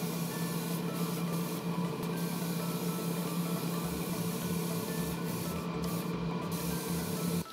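Spray booth exhaust fan running with a steady hum and a hiss of moving air.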